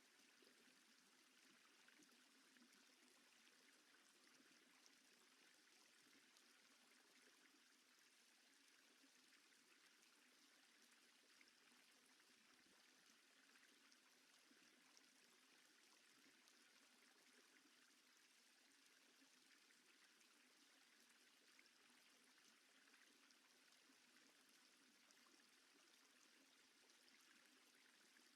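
Near silence: a faint, steady hiss with nothing else heard.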